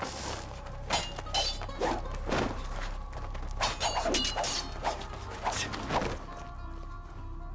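Katana blades clashing in a fast sword fight: about ten sharp metallic strikes with a ringing tail, coming in quick flurries, over a low film score. The strikes stop about six seconds in, leaving the music.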